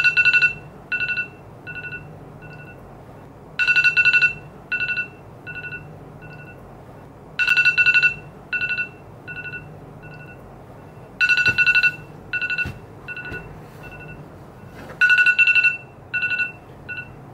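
Smartphone alarm going off: a cluster of rapid beeps, then three or four single beeps fading away, repeated five times about every four seconds.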